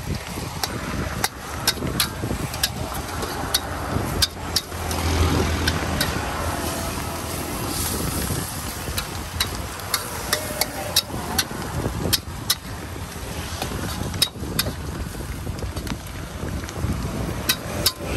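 Irregular sharp metal clinks and taps of a spatula working a wok of frying noodles, one to three a second, over the steady noise of road traffic, with a vehicle passing close by about five seconds in.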